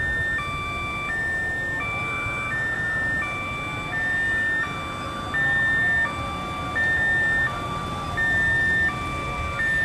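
Electronic two-tone warning alarm, switching back and forth between a single higher note and a lower two-note chord about every two-thirds of a second, over a low rumble. The single note gets louder in the second half.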